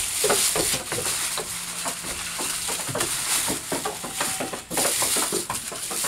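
Dry onion tops and papery onion skins rustling and crackling against a wicker basket as hands rummage through it, a quick run of small crackles.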